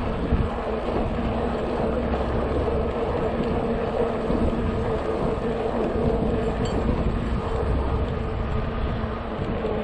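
Riding noise from a RadMini electric bike: a steady hum from the hub motor over tyre rumble and wind on the microphone.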